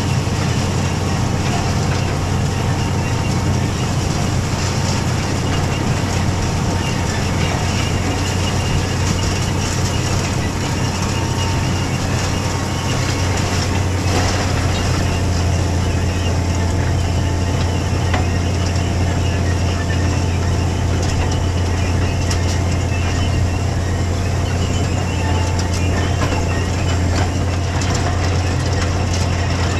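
Steady rumble and rattle of a tractor-drawn air drill working through dry soil, its openers dragging and its frame clattering, with a low drone running underneath.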